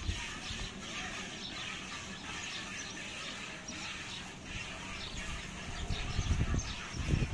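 Jets of milk squirting from a cow's teats into a steel pail during hand milking, a short hiss about twice a second with the rhythm of the squeezing hands.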